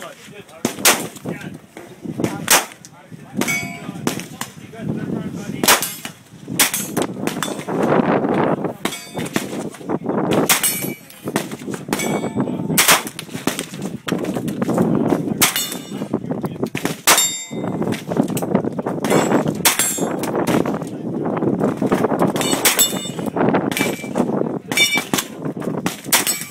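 Caracal carbine in .45 ACP firing single semi-automatic shots, a long series at roughly one shot a second, some shots followed by a brief metallic ring.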